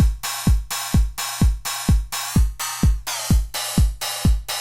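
Drum machine loop: a 909-style kick drum on every beat, about two a second, each followed by a bright cymbal wash that cuts off at the next kick because the cymbal is choked to the kick.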